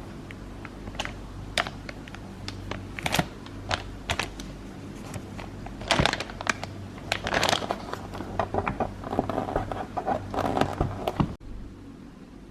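Small objects being handled: scattered light clicks and taps, growing into denser rustling and clicking in the second half, which stops abruptly near the end.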